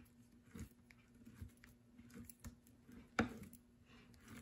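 Steel ink knife scraping and tapping on a plexiglass slab as stiff litho ink is cut together with a powdered stiffener: faint, scattered scrapes and light taps, with one louder knock about three seconds in.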